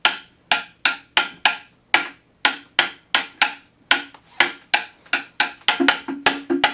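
A wooden stick drumming on a blue plastic container used as an improvised drum: a run of sharp strikes, about three a second, quickening near the end.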